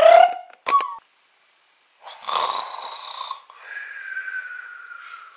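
A man snoring: a rasping snore on the in-breath, then a thin, whistling tone that slowly falls on the out-breath, and another rasping snore starting near the end. In the first second there is a short rising tone and a click.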